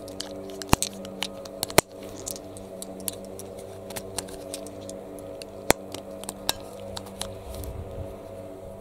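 9 mm cartridges being pressed one at a time into a Magpul PMAG polymer pistol magazine for the Glock 17, giving irregular sharp clicks as each round snaps in under the feed lips. A steady low hum runs underneath.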